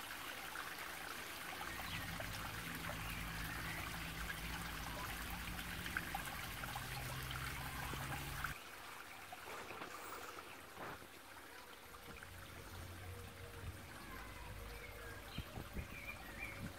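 Water trickling steadily, with a low hum underneath. The sound changes abruptly about halfway through.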